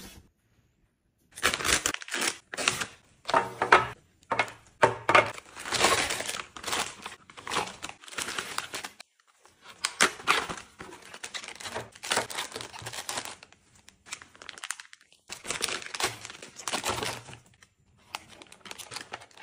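Plastic snack wrappers and packaging crinkling and rustling in irregular bursts as packets are handled and packed into a clear plastic storage bin.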